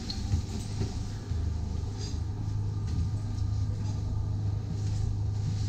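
Steady low hum of a motor yacht's onboard machinery, with a few light knocks over it.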